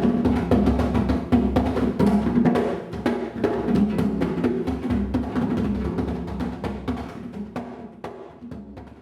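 Music driven by drums and percussion, with fast strokes over sustained pitched notes, fading out over the last few seconds.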